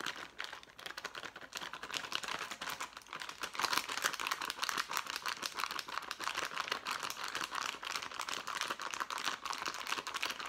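Folded plastic MRE dessert pouch shaken hard and continuously, its plastic crinkling in a rapid rattle, to mix vanilla pudding powder with water. The shaking gets louder about three and a half seconds in.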